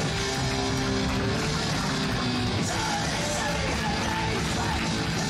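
Rock music with a singing voice and guitar, playing steadily throughout.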